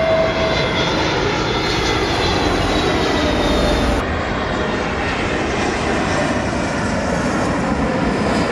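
Jet airliners passing low overhead on landing approach: a steady engine roar with faint whining tones. The sound changes abruptly about four seconds in as one aircraft's pass gives way to the next.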